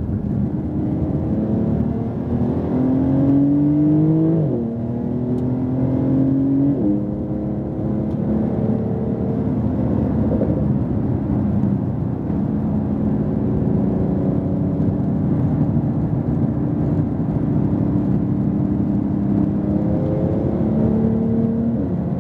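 Porsche 911 Turbo S twin-turbo flat-six, heard from inside the cabin, pulling hard out of a corner. Its pitch rises and drops at upshifts about four and a half and seven seconds in, then it holds a steady high speed with road noise, and rises again near the end.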